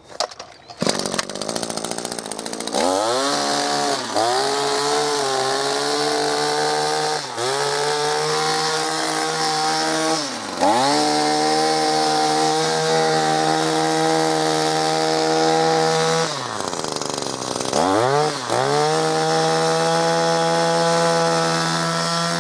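Echo SRM-2620T string trimmer's two-stroke engine starting about a second in and running at high revs. The throttle is let off and squeezed again four times, the engine note dropping and climbing back each time.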